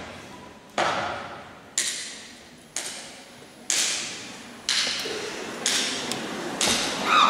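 A step team's unison stomps and claps, beating out a slow, steady rhythm of about one sharp hit a second, each echoing in a large hall.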